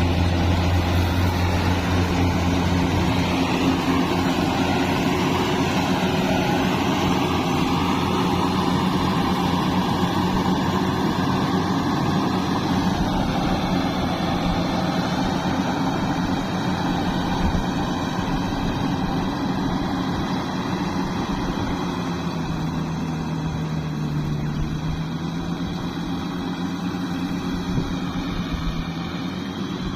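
Diesel engine of a Yanmar AW70V combine harvester running steadily, its note dipping briefly a little past the middle before recovering.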